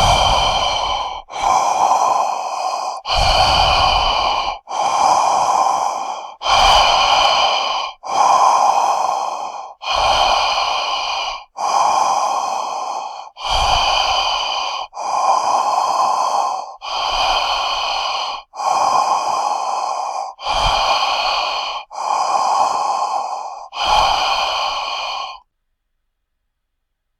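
Loud, heavy breathing, a giant-monster breathing sound effect: a steady run of about fifteen long breaths, each about a second and a half, starting strong and fading. It stops about 25 seconds in.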